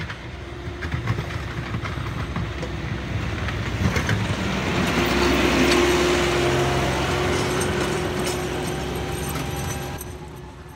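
Kioti diesel tractor with a snowblower driving past close by, the engine running with a steady whine and scattered clatter. It is loudest about halfway through and fades away near the end.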